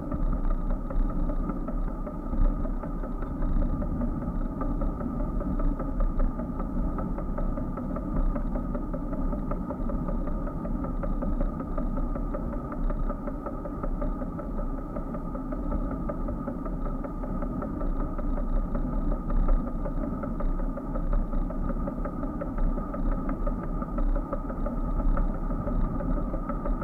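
Steady rumble of wind and road vibration on a bicycle-mounted action camera riding along a paved path, with a constant hum running through it.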